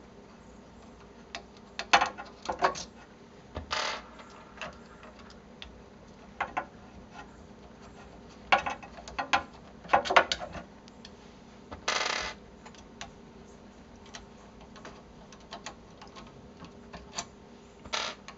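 Small metallic clicks, taps and clinks at irregular intervals as an Allen key works out the screws holding the motor on a 3D printer extruder, with a few louder clinks scattered through.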